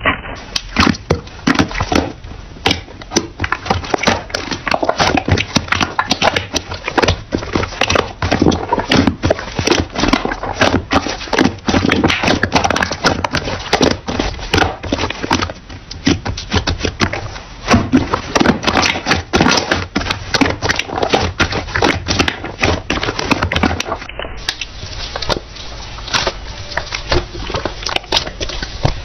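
Slime being squeezed and pressed by hand, a dense, irregular run of small clicks and pops.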